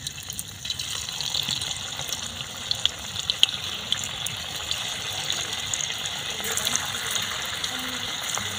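Flour-and-spice-coated potato peels sizzling and crackling in hot oil in a kadai as more strips are dropped in one at a time. It is a steady frying hiss studded with small pops.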